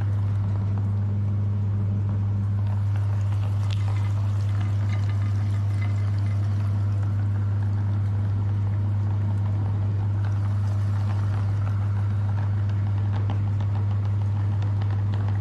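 Meat grinder running with a steady low hum while soft jelly is forced through it, giving wet, squelching, pouring sounds.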